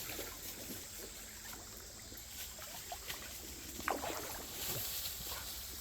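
Faint creekside ambience: low water-like noise with a few small scattered clicks and rustles, and one brief faint pitched sound about four seconds in.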